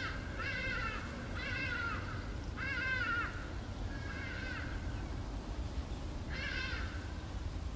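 An animal calling repeatedly: five short, arching cries about a second apart, with a longer pause before the last, over a steady low rumble.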